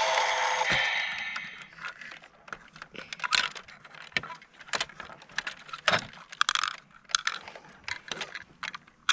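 Hard plastic clicking and clattering as a toy CAT excavator's arm and bucket are worked by hand, in short sharp knocks scattered throughout. At the start a loud, steady electronic-sounding tone fades out over the first second and a half.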